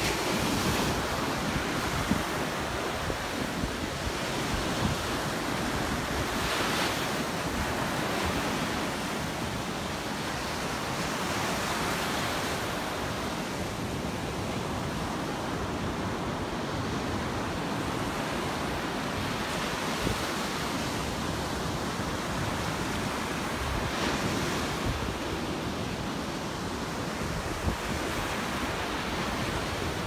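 Ocean surf breaking and washing up the beach, a steady rush that swells louder every few seconds as waves come in, with wind buffeting the microphone.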